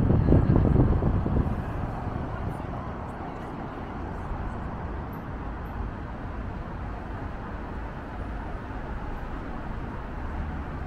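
Steady city street traffic noise. For the first second or so, wind buffets the microphone with a heavy low rumble.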